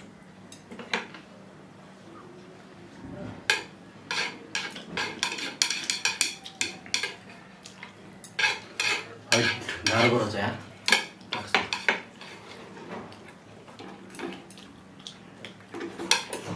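Chopsticks clicking and scraping against bowls while noodles are eaten: irregular clinks, few at first, then many in quick clusters.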